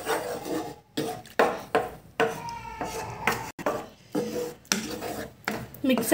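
Wooden spatula scraping and stirring a thick mix of semolina and milk in a pan, in quick repeated strokes about two a second. It is stirred fast so the semolina does not form lumps as it thickens for rava halwa.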